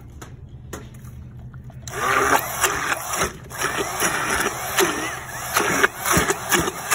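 Handheld immersion blender starting up about two seconds in and running in a narrow stainless steel container, churning mayonnaise and cranberries into a spread. It runs loud and uneven, rising and falling as the blade works through the thick mixture.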